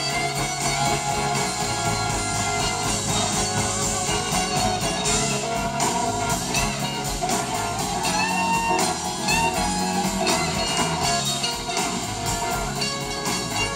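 Live blues-rock band playing: electric guitars over drums and bass. A guitar plays gliding lead notes through the middle.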